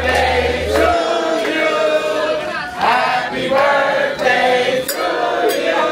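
A crowd of people singing together in loud chorus, phrase after phrase.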